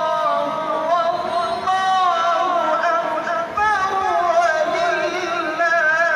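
A male voice singing a slow melody with long, wavering held notes that slide from pitch to pitch.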